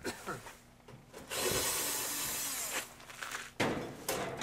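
Sheet-metal panels of a clothes dryer scraping against each other in a steady scrape of about a second and a half, followed by a sharp metal clank.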